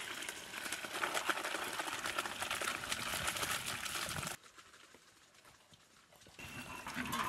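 Boiled mutton and its broth being poured into a cooking pot: splashing liquid with small clinks, which stops suddenly about four seconds in. A shorter, fainter sound follows near the end.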